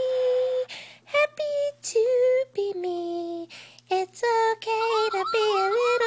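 A child's high voice singing: one long held note, then a string of short notes, and near the end a quick run of notes that waver up and down.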